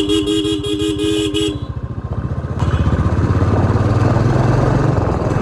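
A vehicle horn sounds for about a second and a half over the thud of a Royal Enfield Classic 350's single-cylinder engine. From about two and a half seconds in, the engine pulls harder under more throttle.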